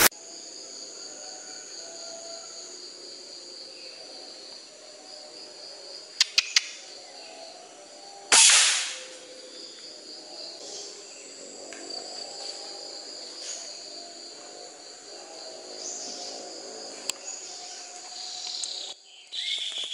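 Insects (crickets or cicadas) keep up a steady high buzzing throughout. A few short clicks sound about six seconds in. About eight seconds in comes a single sharp report from a PCP air rifle firing a 16-grain slug at a squirrel.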